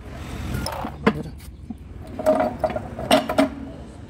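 Steel truck gearbox parts clanking against each other, with ringing metallic knocks: one about a second in, then a cluster around two seconds and another around three seconds.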